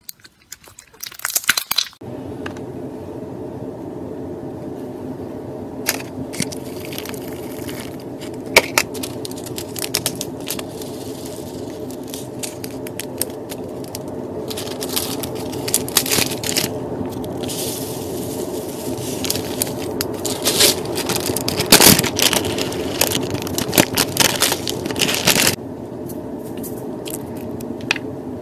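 Slime being squished, pressed and pulled by hand, giving many small crackling clicks and pops that come thicker and louder in the second half, over a steady low hum.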